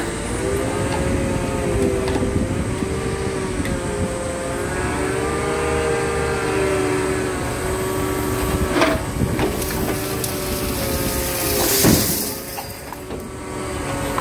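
Grapple material handler's engine and hydraulics running, its whine rising and falling in pitch as the boom swings while loading scrap steel into a truck body. A couple of sharp metal clanks come through, the loudest about twelve seconds in.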